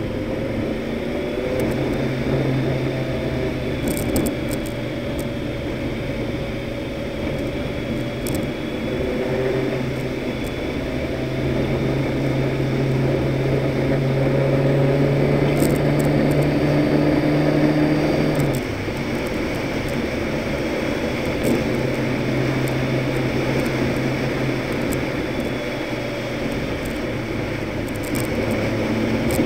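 Toyota truck driving at speed: steady engine and tyre noise on the road. The engine note swells and holds, then drops suddenly about two-thirds of the way through, and a few sharp ticks come through now and then.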